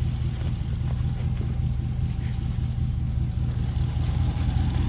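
A steady, even low hum from an idling engine or similar machine.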